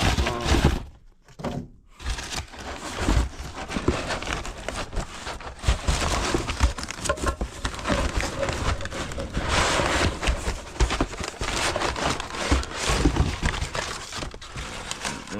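Crinkling and rustling with scattered knocks, the sound of packaging and a part being handled, as a new furnace inducer motor is unpacked.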